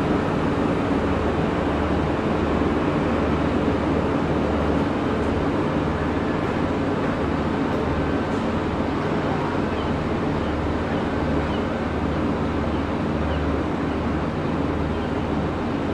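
Irish Rail 8100 class DART electric train pulling away, a steady low rumble and hiss that slowly fades as the train draws off.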